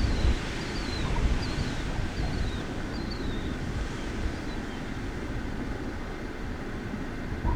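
Wind buffeting the microphone, a gusty low rumble. Above it, a bird gives short high falling chirps about every three-quarters of a second, fading out about five seconds in.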